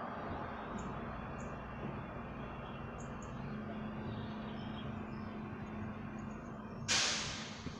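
Refuse collection truck's diesel engine running steadily at a distance, with a few faint bird chirps. About seven seconds in there is a sudden loud hiss that fades away within a second.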